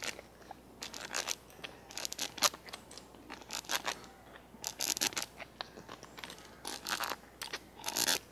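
Hand-cranked eggbeater-style drill boring a hole through a birch wood spatula handle with a twist bit: a run of short, irregular scratchy clicks and scrapes as the bit cuts and the gears turn.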